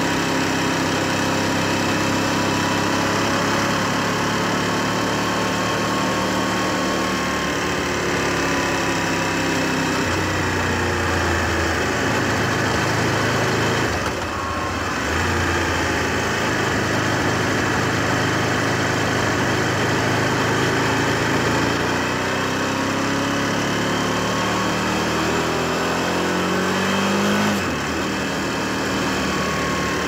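Aprilia SL1000 Falco's 998 cc Rotax V-twin running under way, its revs rising and falling, with a brief dip about halfway through and another change near the end. A high-pitched tick at roughly half engine speed, of unknown cause and most noticeable off the throttle, is barely audible under the engine.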